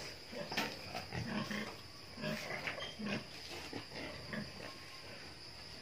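Weaned piglets grunting softly in short, scattered grunts, about one a second.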